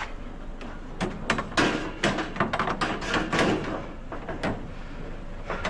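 Knocks and clatter of curbside scrap being handled and loaded, a quick run of irregular hard impacts from about one second in to past four seconds.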